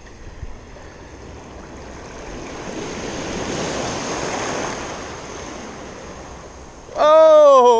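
A small sea wave washing and foaming around a wader close to the microphone, swelling for a couple of seconds and then fading. Near the end a man gives a loud drawn-out exclamation.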